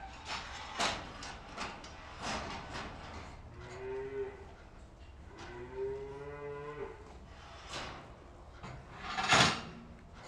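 Holstein dairy cows mooing at a feed barrier: a short moo about four seconds in, then a longer, slightly rising moo soon after, over scattered crunching and rustling of hay as they eat. A loud, short noisy burst near the end.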